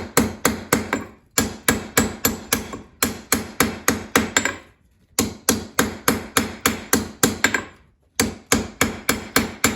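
Forging hammer striking hot 5160 spring steel on an anvil in quick runs of about five or six blows a second, with short breaks about a second in, about five seconds in and about eight seconds in. The blows are rounding the edges of a slot punch so that it slides through with less friction.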